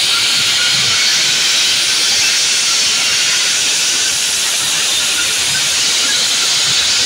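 Loud DJ sound-system stacks on tractor trailers, heard as a steady, hiss-like roar with no clear beat or tune.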